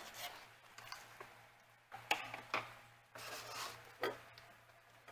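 Kitchen utensils and jars being handled on a countertop: a few sharp clicks and knocks with some rubbing between them, over a faint steady hum.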